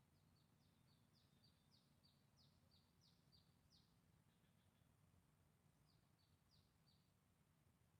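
Faint bird song: a quick series of short, high, downward-sliding notes alternating between two pitches, about three a second, in one run lasting roughly four seconds and a shorter run near the end.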